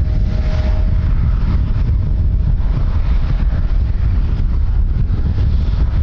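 Strong wind buffeting the microphone, a loud, constant low rumble. A faint steady whine sits under it for the first couple of seconds.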